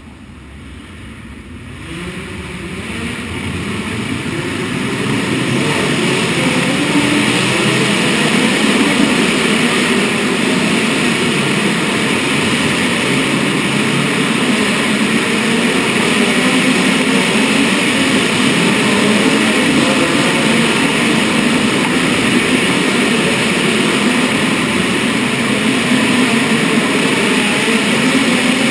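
Racing midget car engines running together, swelling over the first few seconds into a loud, steady drone.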